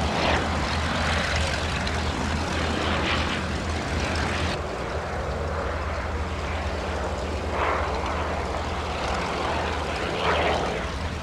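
Le Rhône rotary engine of a Bristol M1C monoplane running in flight over a steady low drone. The propeller-driven engine sound swells and fades several times as the aircraft passes and turns.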